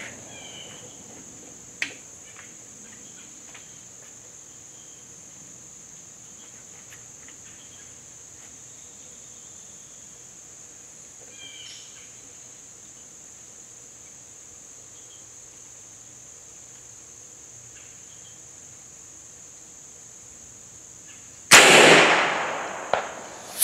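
A single loud shot from a BinTac MCAR .457 big bore air rifle near the end, its report fading over about a second. Before it, a long stretch of quiet outdoor ambience with a steady high hiss.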